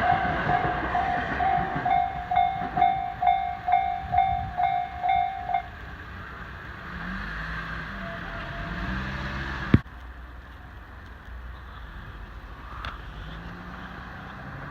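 Japanese level-crossing warning bell ringing in a fast, even run of dings while a Tobu Tojo Line train runs past. The bell stops about five and a half seconds in, once the train has cleared. Quieter road traffic follows, with a single sharp knock near the ten-second mark.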